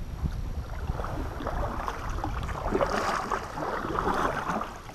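Double-bladed kayak paddle strokes splashing and swishing in lake water, swelling every second or so, with wind rumbling on the microphone.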